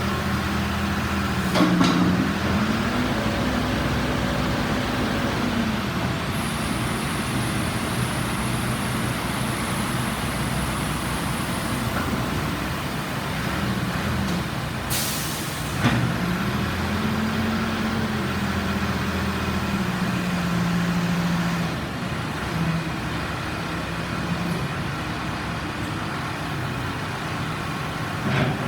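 CAT 426C backhoe's four-cylinder turbo diesel engine running steadily, its engine speed dipping and then rising again twice, with a few clunks and a short hiss about 15 seconds in.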